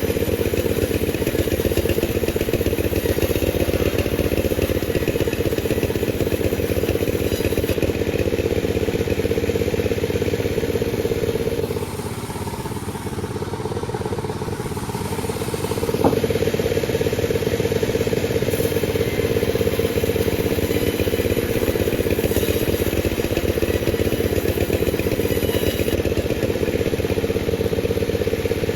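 Panda36 chainsaw running at high revs while sawing a durian log. Its engine drops to a lower, quieter note for about four seconds midway, then picks up again with a sharp click.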